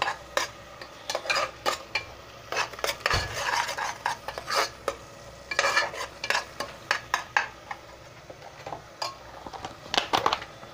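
Steel spoon stirring and scraping a thick onion-tomato paste frying in oil in an aluminium pressure cooker: irregular scrapes and clinks of metal on the pot over a faint sizzle, with a quick cluster of clinks near the end.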